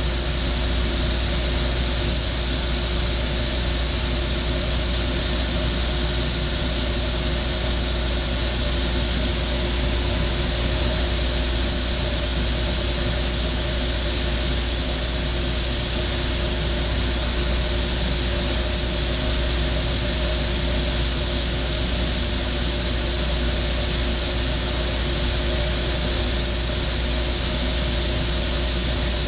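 Sandblaster nozzle blasting sand at high pressure against a clay roof tile inside a blast cabinet: a steady, loud hiss of air and sand that does not change, with a low hum underneath.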